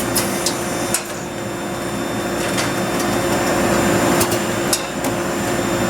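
Duplo Quadrimax II perfect binder running with its cover feeder feeding covers: a steady machine hum and the air rush of a dust collector, with several sharp mechanical clicks, about a second in and again around four to five seconds in.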